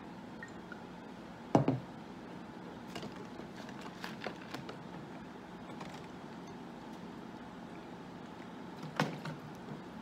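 A plastic water bottle being handled, opened and drunk from: small clicks and crinkles of the bottle and its cap, over a steady hum. There is a sharp thud about a second and a half in and another near the end.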